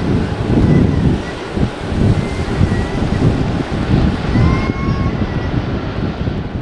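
Jet airliner's engines running at low power as it rolls along the runway, a low rumble buffeted by wind on the microphone.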